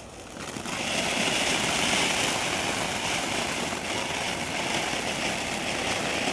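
Class 1 ground fountain firework hissing steadily as it throws up a spray of sparks, swelling up about half a second in and holding.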